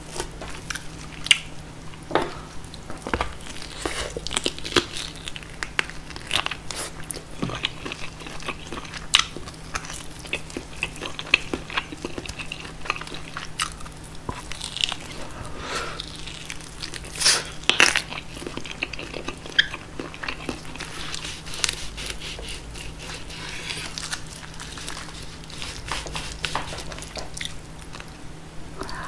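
Close-miked biting and chewing of roast pork knuckle, its crisp crackling skin crunching in sharp, irregular crackles, with a faint steady hum underneath.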